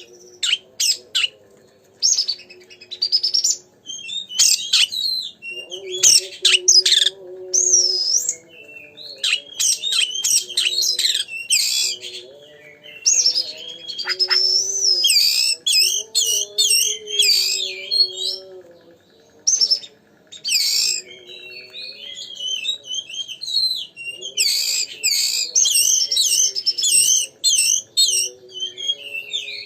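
Oriental magpie-robin (kacer) in full, vigorous song: a fast, varied string of clear whistles, sweeping notes and sharp chirps, in bursts with short pauses. A lower wavering tone runs underneath.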